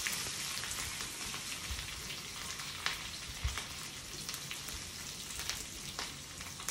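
Tadka sizzling in hot oil in a small pan: cumin and mustard seeds, grated ginger and green chillies frying with a steady hiss and a few clicks.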